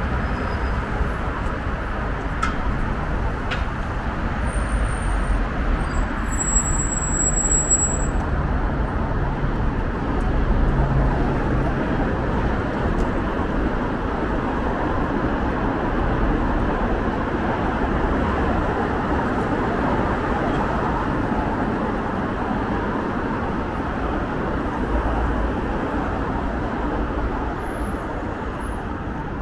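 Street traffic noise: a steady rumble of passing road vehicles.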